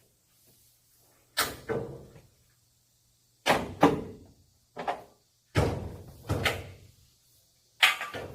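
About eight sharp knocks, several in quick pairs, each dying away within a fraction of a second, with short pauses between groups.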